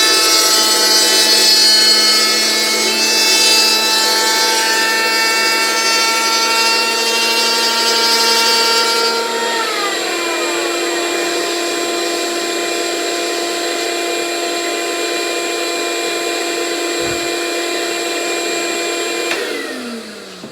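A power tool whines steadily while trimming the outline of a surfboard blank, with a rasping noise under the whine. About nine and a half seconds in, its pitch slides down and settles at a lower speed. Near the end it winds down and stops.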